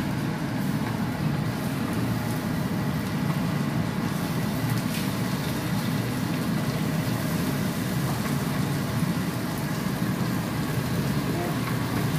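Steady low rushing noise of a stove under a frying pan, with the soy and sesame-oil sauce simmering around the mullet milt and a few faint scrapes or pops.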